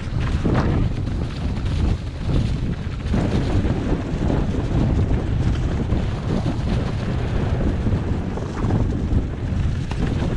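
Wind buffeting the camera microphone over the rumble of a mountain bike's tyres on a dirt and leaf-covered trail, with short knocks and rattles from the bike as it rides over bumps.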